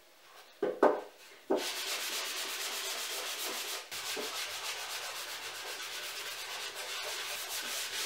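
Sanding sponge rubbed quickly back and forth by hand along the edge of a wooden tray: a steady, rapid scratching with a short break about four seconds in. It is preceded by a couple of sharp knocks about a second in.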